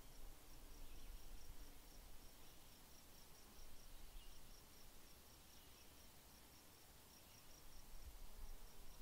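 Faint outdoor ambience: an insect chirping, a short high-pitched chirp repeated evenly about five times a second in runs broken by brief pauses, over a low rumble.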